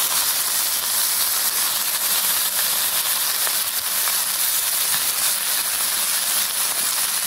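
Steady sizzling hiss from a hot pan of egg and coconut thoran frying in coconut oil as wet, freshly washed drumstick leaves are piled onto it.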